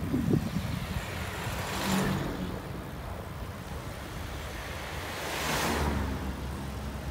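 Wind rumbling on the microphone of a moving bike, with two road vehicles passing by in swells of tyre and engine noise that rise and fade, one about two seconds in and another near six seconds.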